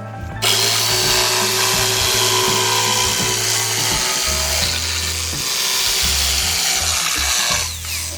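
Electric power tool running under load in wood: a loud, dense noise with a faint whine that starts suddenly about half a second in and winds down near the end.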